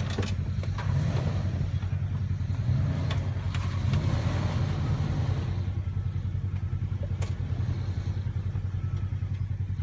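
Jeep Grand Cherokee engine running steadily at low revs while crawling slowly over rocks, with a few sharp knocks and clicks scattered through.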